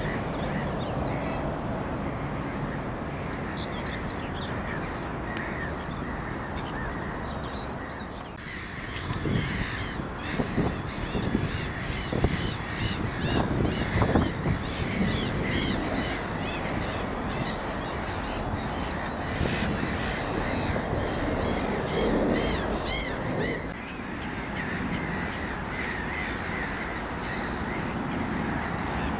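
Birds calling and chirping over a steady outdoor background noise, with the calls thickest in the middle stretch.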